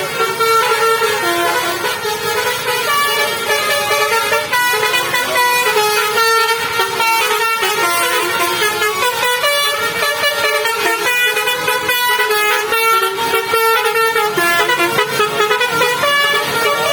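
Bus 'telolet' horn, a Basuri multi-tone air horn, playing a quick melody of musical toots that step up and down in pitch, over and over.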